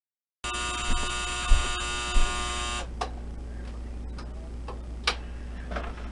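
A small electric motor whirs with a steady buzzing hum and a few low bumps, then cuts off about two and a half seconds in. Light clicks and knocks follow as the oven and kitchen things are handled.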